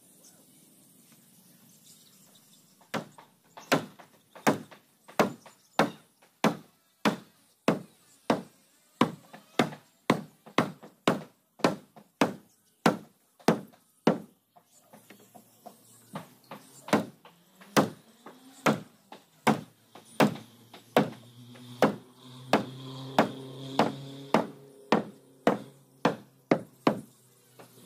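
Hammer blows on the wooden planking of a boat hull, struck one after another at about one and a half a second, with a short pause midway.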